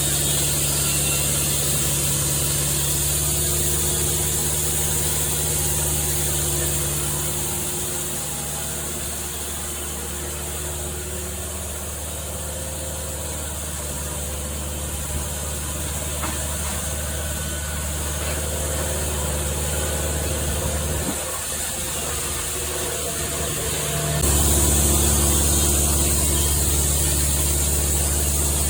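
An engine running steadily, easing off about seven seconds in and changing suddenly to a louder, steadier run about 24 seconds in.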